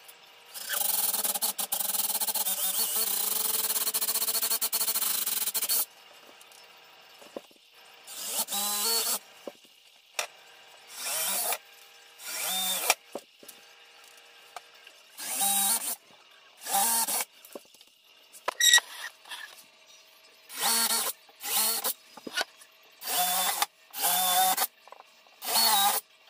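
Cordless drill boring holes through cabinet doors and drawer fronts for handle screws: one steady run of about five seconds, then a string of short bursts of under a second each.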